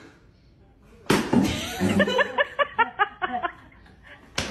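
A sudden sharp hit about a second in, followed by a group of people laughing in quick, rhythmic bursts that fade out.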